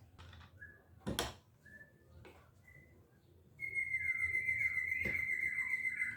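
A bird singing: a few short chirps, then a loud, steady high whistled note with quick falling chirps under it from a little past the middle. A single sharp knock sounds about a second in.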